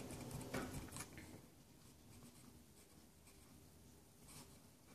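Faint rubbing of a fingertip twisting against the sponge inside a nail polish remover jar: a few soft strokes in the first second and one more near the end.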